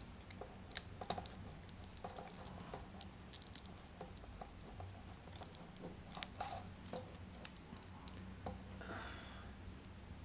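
Plastic parts of a Takara Tomy Masterpiece MP-20 Wheeljack transforming figure being handled and pressed apart: faint, scattered small clicks and ticks of plastic, with a slightly louder clatter about six seconds in.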